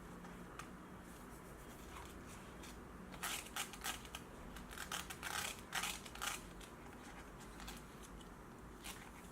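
Light handling of a baby's board book: a cluster of short crisp rustles and taps in the middle, with a few single ticks before and after, over a faint steady hum.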